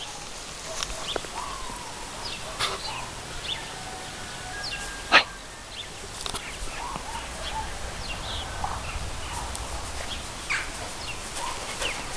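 Scattered short animal calls, with one sharp, louder call about five seconds in.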